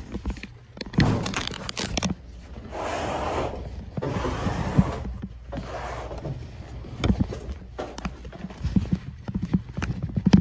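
Wooden furniture being handled and moved by hand: scattered knocks and thumps, with two longer stretches of rubbing noise about three and five seconds in.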